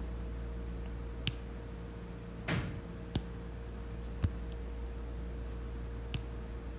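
Steady low background hum, with a handful of soft, scattered clicks and taps, the loudest about a second and a half apart.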